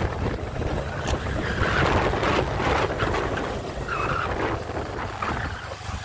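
Wind buffeting the microphone on a moving motorcycle, with the engine's steady low drone underneath.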